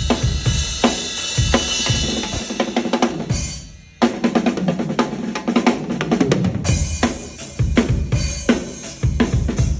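Drum kit played at a sound check: bass drum, snare and cymbals in a busy groove. The playing dies away about three and a half seconds in, then starts again abruptly about four seconds in with a fast run of strokes.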